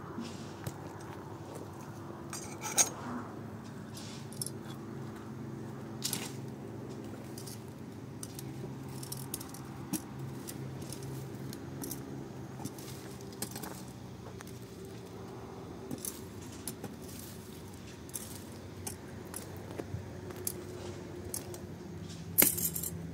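Scattered light clicks and clinks of small hard objects being handled, with a louder clatter about three seconds in and another near the end, over a steady low hum.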